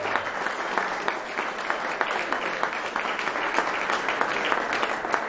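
A room of guests applauding: many hands clapping in a steady, dense patter.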